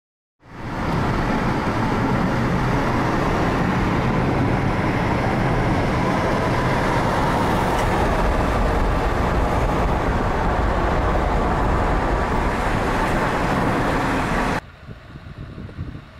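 A car moving at speed, heard from beside its side window: steady road and wind noise. It stops abruptly about fourteen and a half seconds in, leaving a much quieter background.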